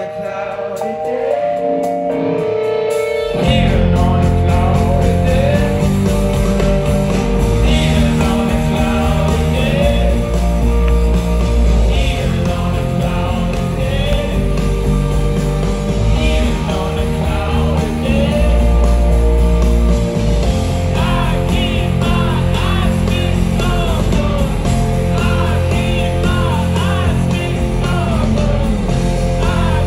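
Live rock band playing with a lead singer, heard from within the crowd. Held notes with no low end give way about three seconds in to the full band, with drums and bass guitar.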